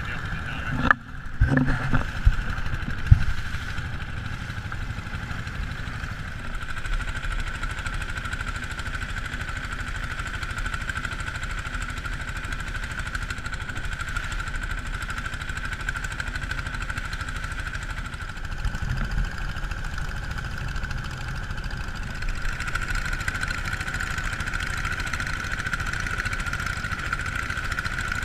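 Long-tail boat engine running steadily as the wooden longboat travels at speed, growing a little louder near the end. A few sharp thumps sound in the first three seconds.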